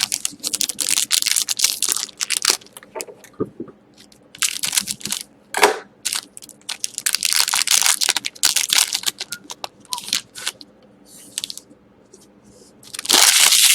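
Trading card pack being opened by hand: crinkling and tearing of the wrapper and the rustle of cards being handled, in irregular bursts with short pauses.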